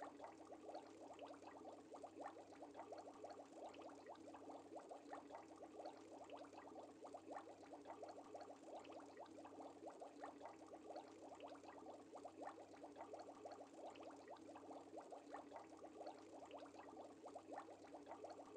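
Faint, steady bubbling of air bubbles rising through aquarium water: a dense, even stream of tiny bubble pops.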